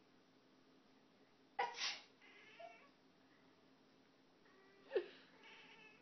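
Twice, about three seconds apart, a person gives a sharp, explosive burst of breath, a cough or sneeze, and a domestic cat answers each with short meows.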